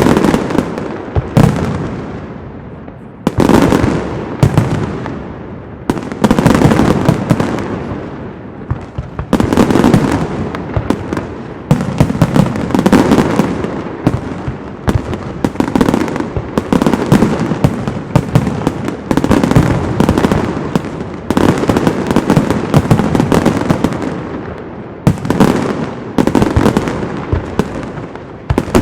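Castillo aerial fireworks display: a continuous barrage of shell bursts and crackling, with a new loud volley every two to three seconds, each trailing off as the next begins.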